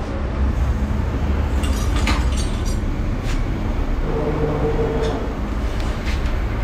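Steady low background rumble with a few light metal clicks and clinks as the piston pin is fitted into the Honda Activa's piston and connecting rod. A brief steady hum comes in about four seconds in.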